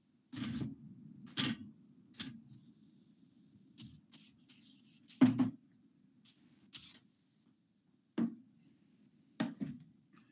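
Felt whiteboard eraser wiping across a whiteboard in a series of short rubbing strokes and light knocks, the loudest about five seconds in.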